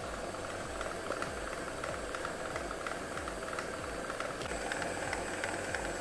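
Smeg stand mixer running steadily at speed, its wire whisk beating Swiss meringue buttercream in the stainless steel bowl as melted chocolate is mixed in.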